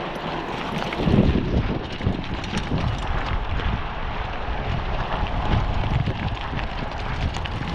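Wind buffeting the microphone of a chest-mounted GoPro on a moving mountain bike, with steady rolling noise and many small rattling ticks from the ride.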